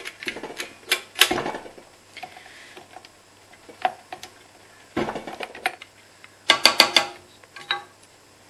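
Clicks and metallic clanks from handling a KitchenAid Artisan stand mixer, its tilt head and beater lifted off, and a spatula knocking and scraping in the stainless steel mixing bowl, with a quick run of ringing taps about two-thirds of the way in. The mixer motor is off.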